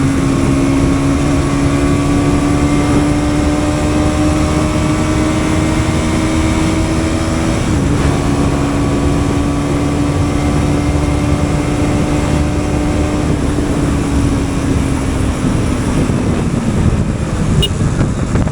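Bajaj Pulsar NS200's single-cylinder engine running hard at speed, its pitch climbing slowly, with a brief dip about eight seconds in, then easing off and falling away in the last few seconds, over a steady rush of noise.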